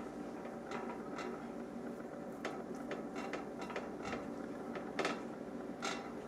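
Faint, scattered scrapes and light knocks of a knife and jar as peanut butter is scooped and spread on sliced bread.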